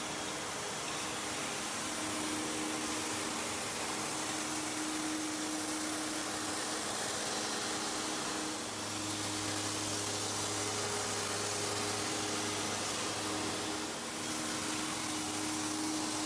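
Blastrac walk-behind shot blaster running across a concrete floor, firing steel shot at the surface to blast out embedded grime. It gives a steady hiss with a motor hum, and a deeper hum joins about halfway through.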